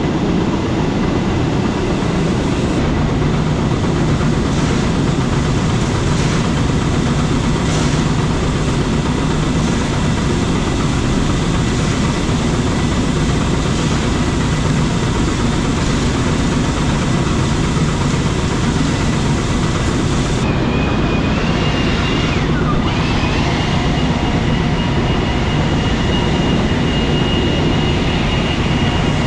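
Farm machinery engine running steadily at one constant, loud level. A thin, steady high tone comes in about two-thirds of the way through and holds.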